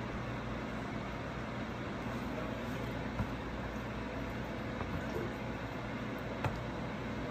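Steady mechanical hum, with a few light clicks of serving utensils and food being set down on plates.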